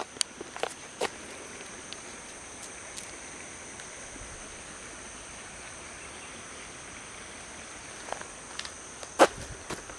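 Insects trilling steadily at a high pitch. Sharp steps on the ground come near the start, and a few louder clicks near the end.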